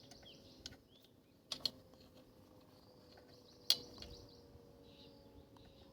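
Faint metallic clicks from the rear brake caliper's pad pin being pushed back in: two quick clicks about a second and a half in, then a sharper one near four seconds.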